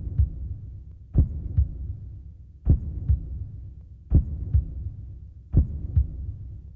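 Slow heartbeat sound effect: paired low thumps, a strong beat followed by a softer one, repeating about every second and a half over a low rumble.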